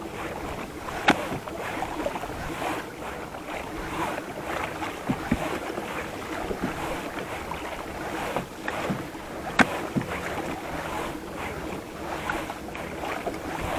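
Small waves lapping and splashing against a kayak's hull, with two sharp clicks standing out, one about a second in and one at around nine and a half seconds.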